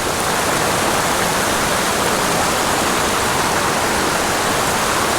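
Small mountain creek's water rushing over rocks close by, a steady loud noise.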